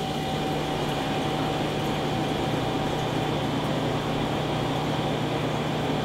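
Jet-Tech F-18DP undercounter commercial dishwasher draining its wash tank: a steady running noise with a constant low hum.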